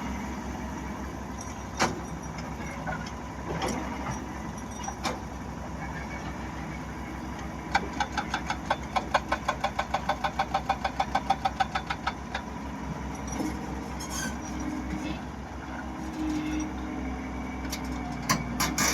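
Diesel engines of heavy earth-moving machinery running steadily, with scattered metallic knocks. In the middle comes a rapid clanking rattle, about five clanks a second, lasting about four seconds.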